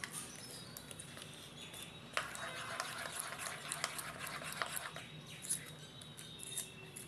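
A metal spoon stirring thick, wet bread-and-yogurt batter in a bowl: soft squelching with light clicks and scrapes of the spoon against the bowl, busiest from about two to five seconds in.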